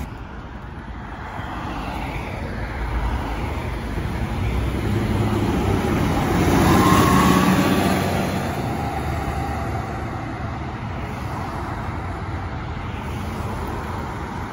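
Articulated city bus driving past, its engine and tyre noise swelling to a peak about halfway through and fading as it pulls away, over steady road traffic.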